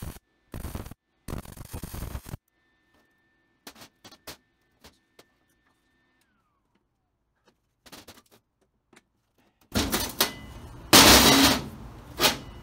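Welding on a steel brake pedal bracket: short bursts of crackling weld noise with silent gaps and a few clicks between them, then louder, longer stretches of the same noise near the end.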